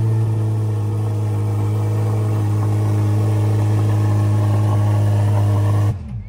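Chevrolet Corvette C8 Z06's flat-plane-crank 5.5-litre V8 idling steadily and loud. It is shut off about six seconds in.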